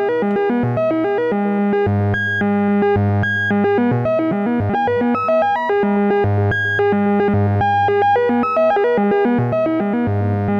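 Make Noise XPO oscillator playing a sequenced synth melody in stepped notes, a low note shifting about every second under quicker upper notes. Two René sequences take turns, each transposed by the note the other stopped on.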